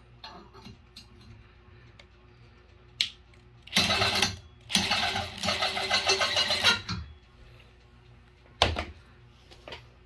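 Makita XDT15 cordless impact driver running in two bursts, a short one about four seconds in and a longer one of about two seconds, spinning a hex bit extension and a ratchet-strap roller. A sharp knock comes just before the first burst and another near the end.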